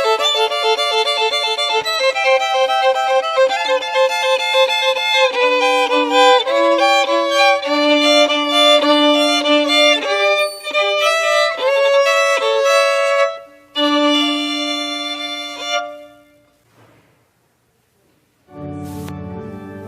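Violin playing a slow melody, at times sounding two notes together, with the last note fading out about three-quarters of the way through. After a short silence, fuller music with low sustained notes starts near the end.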